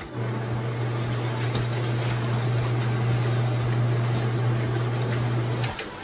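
Twin-tub portable washing machine's wash motor running a rinse cycle: a steady low hum with water churning in the tub. It cuts off suddenly near the end.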